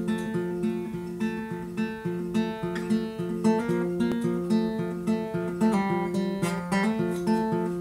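Acoustic guitar played solo: chords picked note by note in a steady, repeating pattern, the notes left ringing.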